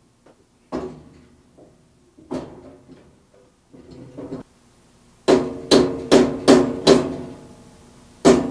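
Rubber mallet striking the cast-iron saw arm of a Jet 14-inch band saw to seat it on the riser block's alignment pins. A few lighter knocks come first, then a run of five hard blows about two and a half a second, and one more near the end; each blow has a short ring.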